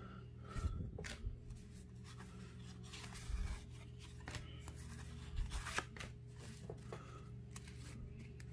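1987 Fleer cardboard baseball cards being flipped through by hand, the front card slid to the back of the stack: soft papery slides and flicks at irregular spacing, about one a second, over a low steady hum.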